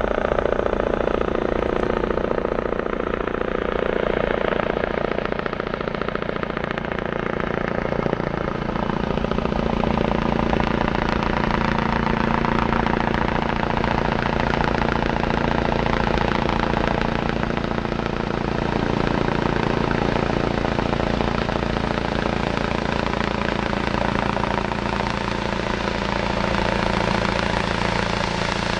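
Eurocopter EC135 medical helicopter flying low overhead as it comes in to land, its rotors and turbine engines making a steady, continuous noise.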